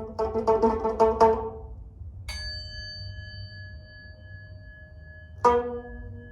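Instrumental music from a Korean traditional-style ensemble: a plucked string instrument repeats one note quickly about seven times, then a single bright metallic tone is struck and rings on, with a lower struck note near the end.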